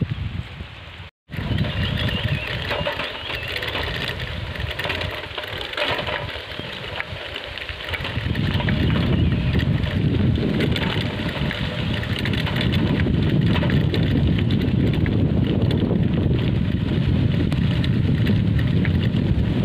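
Wind rumbling on the microphone while riding a bicycle along a dirt forest track. The sound cuts out briefly about a second in and grows into a louder, deeper rumble about eight seconds in.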